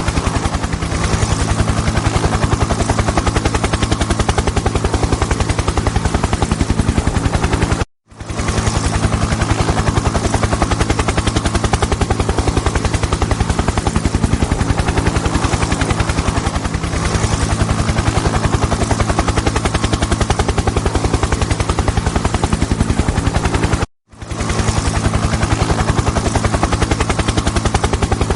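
Helicopter in flight: the rotor blades chopping in a fast, even beat over the steady hum of the engine. The sound cuts out for a split second twice, about 8 seconds in and again about 24 seconds in, where the recording loops.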